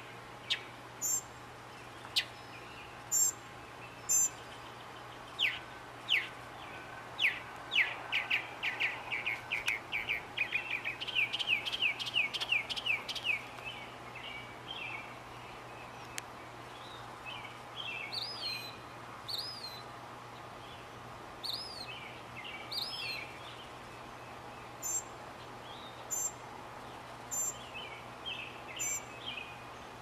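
Northern mockingbird singing over a faint steady hum. Sharp high notes come about once a second at first. In the middle comes a long run of down-slurred notes that speeds up into a trill. After that, short phrases of rising and falling whistles repeat.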